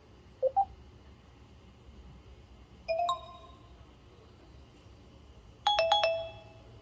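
BlackBerry Torch 9860 alert tones: three short chimes in turn, a quick two-note rising blip about half a second in, a two-note chime near three seconds, and a fast run of three or four bell-like notes near the end.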